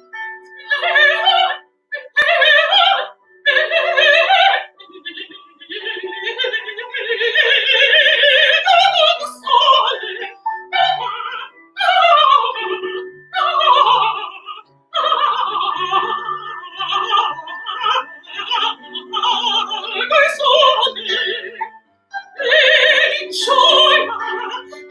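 Female mezzo-soprano singing in operatic style, long wavering phrases with short breaks between them, over a quieter piano accompaniment.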